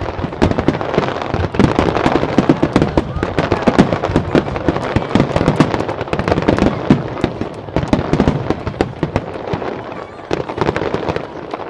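Aerial fireworks finale: a dense, rapid barrage of shell bursts and crackling, bangs overlapping one another, with a short lull about ten seconds in before a last flurry.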